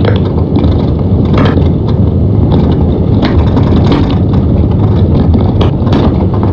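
Road noise heard inside a vehicle driving at speed on an unsealed dirt road: a steady low rumble from tyres and drivetrain, with scattered sharp clicks and rattles from the rough surface.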